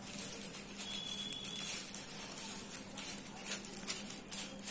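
Aluminium foil crinkling and crackling irregularly as it is folded and rolled by hand into a tube.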